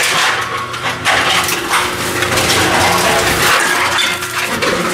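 Aluminum cans clinking and clattering as they are pushed by hand into the round feed opening of a Tomra T-53 reverse vending machine, over a steady machine hum.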